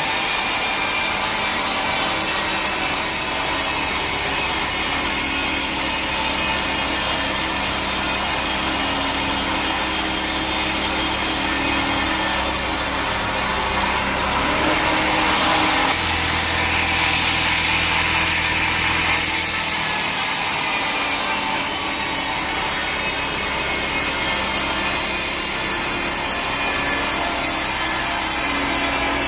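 Sawmill saw cutting through a teak log: a loud, steady cutting noise over the hum of the machine, shifting in tone about halfway through.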